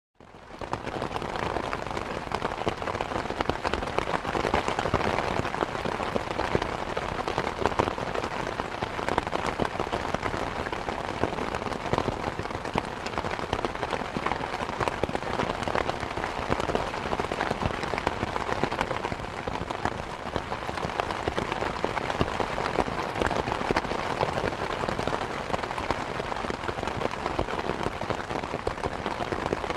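Rain falling steadily on a surface: a dense, continuous patter of many drops.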